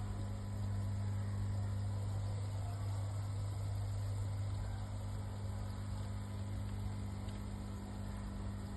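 A steady low mechanical hum, like a small motor or pump running continuously, holding an even pitch and level.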